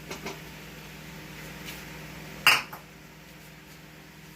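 Cookware clanking in a pan: a couple of light clinks near the start and one loud clank about two and a half seconds in, over a steady faint hiss.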